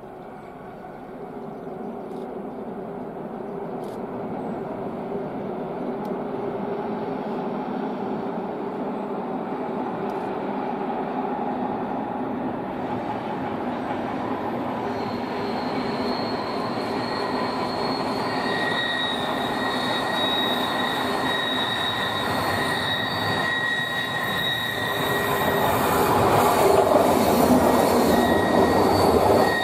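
Passenger train approaching on a curving track, growing steadily louder as it nears. From about halfway through, the wheel flanges squeal with steady high-pitched tones. It is loudest near the end as the coaches come past.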